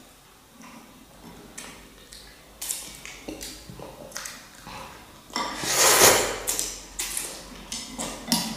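A boy slurping instant noodles from a ceramic bowl, with chopsticks and a spoon clinking against the bowl. There is a long, loud slurp a little past halfway.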